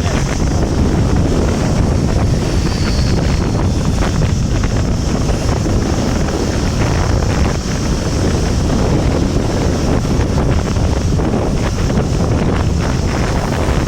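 Wind buffeting the microphone: a loud, steady rumbling rush, with a steady high hiss running above it.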